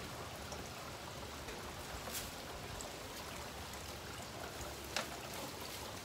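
Garden water fountain running on its new replacement pump, water trickling and splashing steadily. There are two light clicks, about two seconds in and about five seconds in.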